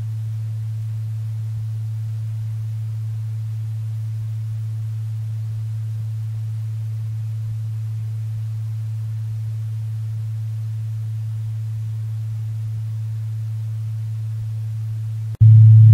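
A steady low sine tone, the base tone of a binaural beat, sounds on its own without overtones. About fifteen seconds in it breaks off briefly, and a louder, fuller tone with overtones comes in.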